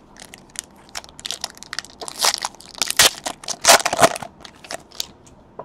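Plastic wrapper of a trading-card pack being opened and crinkled by hand: a run of crackles, loudest in the middle.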